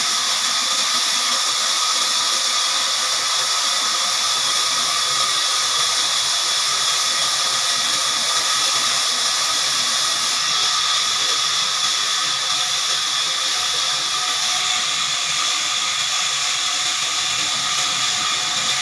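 Heavy-duty horizontal band sawmill running, its blade cutting through a large log: a steady hiss with several high, unchanging whining tones.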